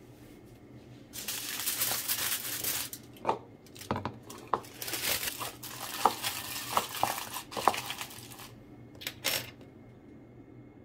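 Aluminium foil being crumpled by hand and pressed into a plastic bowl: a long run of crinkling with many sharp crackles, then two short bursts near the end.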